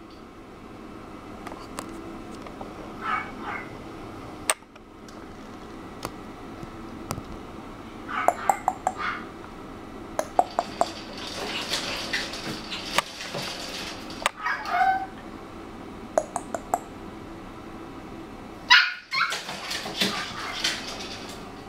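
Three-month-old puppy in a wire pet pen whining and giving short high yips, scattered calls with one falling whine about two-thirds through and the loudest calls near the end.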